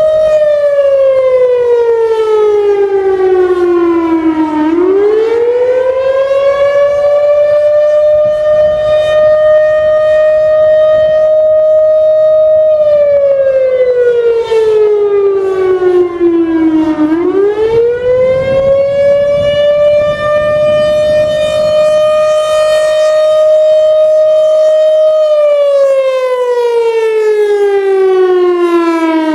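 Federal Signal Thunderbolt 1000 outdoor warning siren sounding the attack signal: a single loud wailing tone that holds steady, falls slowly over about four seconds, then sweeps quickly back up, repeating about every twelve seconds. The third fall begins just before the end.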